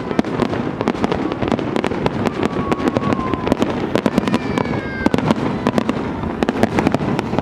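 Aerial fireworks display in full swing: a dense, rapid stream of bangs and crackles over a steady rumble, with a few falling whistles.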